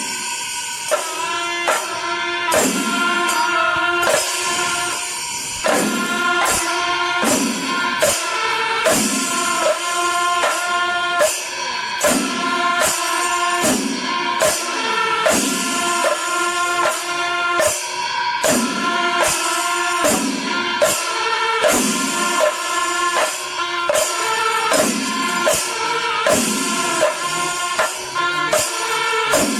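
Background music with a steady percussive beat and sustained melodic tones.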